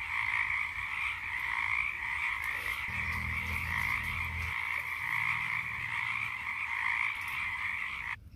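A dense, steady chorus of many frogs croaking together, which cuts off abruptly near the end.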